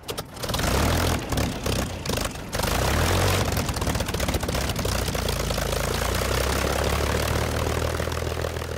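Propeller aircraft engine running, uneven and choppy for the first couple of seconds, then steady, fading near the end.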